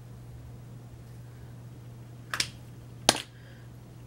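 Two sharp clicks about three-quarters of a second apart, the second louder, from a lipstick tube being handled, over a steady low hum.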